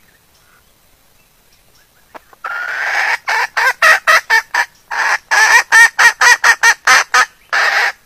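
Junglefowl hen cackling, starting about two and a half seconds in. A drawn-out first note is followed by about a dozen short, quick clucks and a longer closing note. This is the call of a hen in breeding condition that draws a cock.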